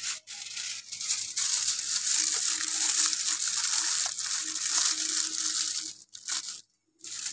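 Aluminium foil being crumpled and crimped by hand around the rim of a tray to seal it shut, a continuous crinkling that breaks off briefly near the end.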